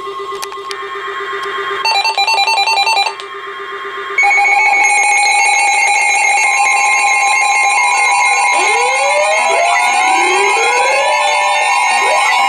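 Emergency Alert System broadcast tones: a steady low tone, then about a second of buzzy data-burst header, then from about four seconds in the loud, steady two-tone EAS attention signal, with rising whistle-like glides joining it in the last few seconds.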